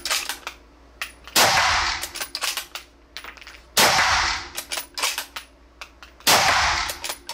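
Howa 1500 HCR bolt-action rifle in 6.5 Creedmoor fired three times, about two and a half seconds apart, each shot a sharp report with a short ringing tail. Between shots come quieter metallic clicks of the bolt being worked.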